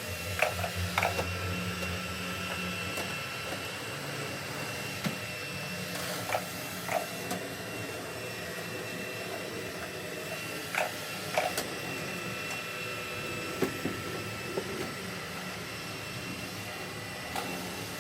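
Xiaomi robot vacuum running steadily: a whirring suction motor with a thin steady whine, and a few short clicks scattered through it.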